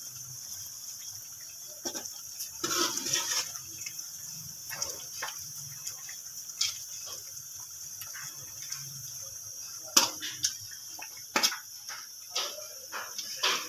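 Meat and gravy frying in oil in a metal karahi, a steady sizzling and bubbling, with a metal spoon scraping and knocking against the pan now and then, sharpest about ten seconds in. This is the bhuna stage, the boiled meat being fried down in oil.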